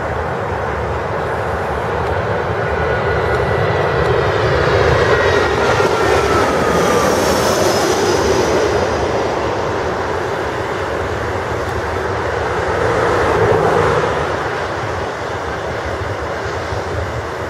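Business jet's engines on landing, a steady jet roar. A whine falls in pitch as the jet passes, and the roar swells again near the end as it rolls out on the runway.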